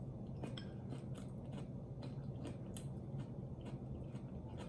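Close-miked chewing and biting of sauce-covered chicken: soft, wet mouth clicks and smacks, two or three a second, over a low steady hum.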